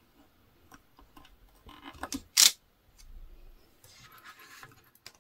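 Tabletop crafting handling noises: a clear stamp on its acrylic block being lifted off a card and set aside, with small clicks and one sharp tap about two and a half seconds in. Near the end comes a short brushing as a hand slides over the paper card.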